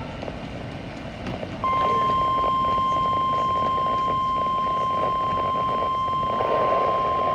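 NOAA Weather Radio 1050 Hz warning alarm tone, sounded for the weekly test of alarm receivers. It comes on abruptly about one and a half seconds in as a single steady tone and holds, over a background hiss.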